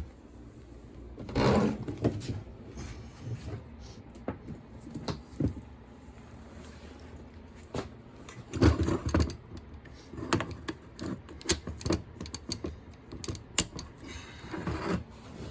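Handling noise from setting up a spray gun for a water test: irregular clicks and knocks of hard plastic and metal parts, with a few short scraping bursts.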